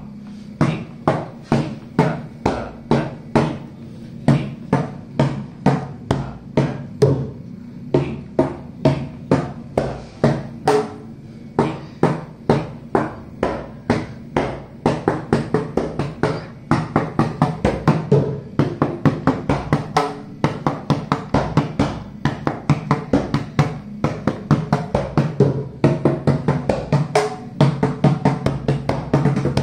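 Mridangam played solo with the bare hands on both heads, running through the beginner's third lesson (Tha Ki Ta Ki Ta Ta Ka Na Ka Ta Ki Ta Ta Ka) in an even rhythm of ringing strokes. It goes at about two strokes a second, about twice as fast from halfway through, and faster again near the end: the lesson's three speeds.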